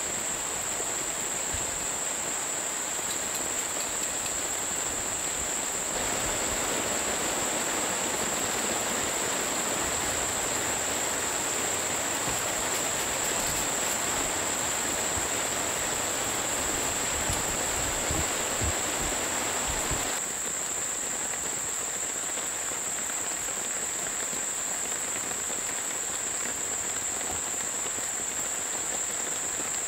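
Steady rain hiss with a constant high-pitched insect drone over it. The rain grows louder about six seconds in and softer again about two-thirds of the way through.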